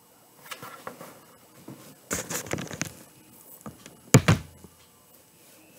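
Handling noise: a burlap wreath rustling as it is moved about, with a sharp thump just after four seconds in.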